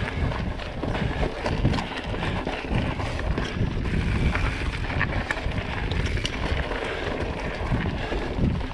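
Wind rumbling on the microphone over the tyres of a mountain bike rolling along a dirt forest trail, with scattered small clicks and rattles from the bike.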